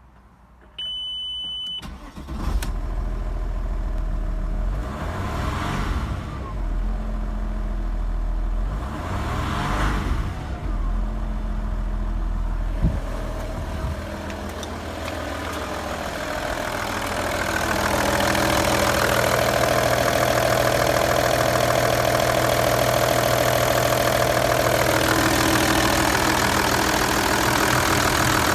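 A short dashboard warning beep, then the Audi A4 B6's 2.5 TDI AYM V6 turbodiesel cranks and starts about two and a half seconds in and runs, its pitch rising and falling twice. A sharp knock near the middle; from a little past the middle the engine is heard louder and closer, idling steadily at the open engine bay.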